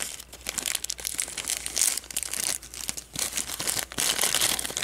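Thin clear plastic bag crinkling and crackling in the fingers as a small piece of tape is picked off it, with irregular rustles that grow louder near the end.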